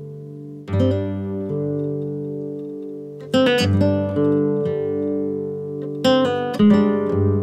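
Background music on acoustic guitar: a chord struck about every three seconds and left to ring out.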